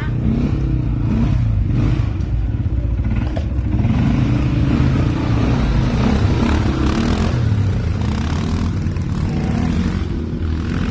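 ATV engine running on a dirt trail, its pitch rising and falling as the throttle is worked.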